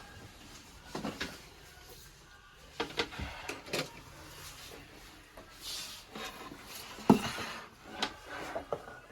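Scattered clicks and knocks of parts and tools being handled inside an opened Apple all-in-one desktop, the loudest knock about seven seconds in.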